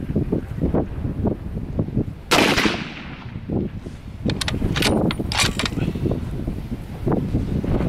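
A single shot from a bolt-action Savage Axis 2 Precision rifle in .270 Winchester with a muzzle brake, a bit over two seconds in, with a short ringing decay. About two seconds later comes a quick run of sharp metallic clicks as the bolt is worked, over steady wind noise on the microphone.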